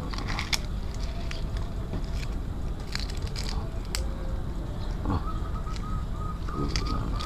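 Small clicks and scrapes of a thin metal spear shaft being worked out of a speared snakehead fish against concrete, over a steady low rumble. A thin steady high tone comes in about five seconds in.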